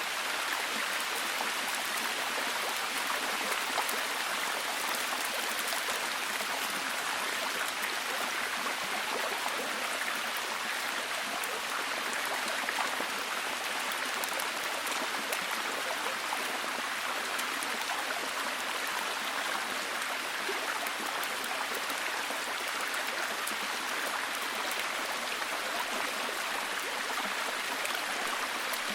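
Steady heavy rain: an even hiss of falling rain, dense with fine drop patter, holding at one level.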